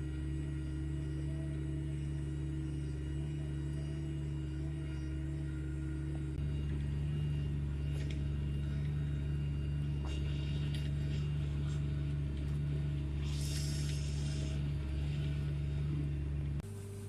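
Farm machinery engine running at steady speed, a constant drone with an even pitch. It gets a little louder about six seconds in, and shortly before the end it gives way abruptly to a quieter, different drone.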